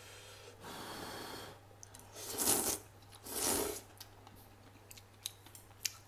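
A person slurping noodles out of a hot, soupy bowl: a softer airy sound first, then two loud slurps about a second apart, followed by a few faint clicks of chewing.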